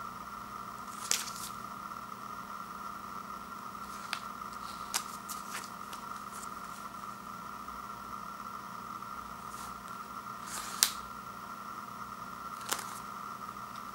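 A Ritter Sport chocolate bar's wrapper being handled and turned over in the hands: a handful of short crinkles and taps, the loudest about eleven seconds in, over a steady background hum.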